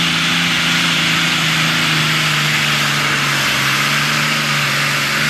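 Turbocharged diesel engine of a Super Stock/Pro Stock pulling tractor running flat out and steady while it drags the weight sled. The loud, even note is mixed with a strong hiss from the turbo and exhaust.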